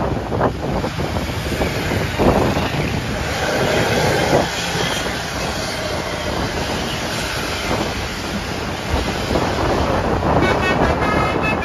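A large bus passing close, with loud engine and road noise, then from about ten seconds in a Basuri multi-tone 'telolet' horn playing its tune of short, quickly changing notes.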